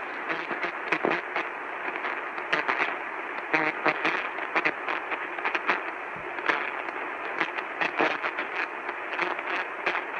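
Radio static from a weak radio signal: a steady hiss squeezed into a narrow, thin-sounding band, broken by frequent irregular crackles and pops.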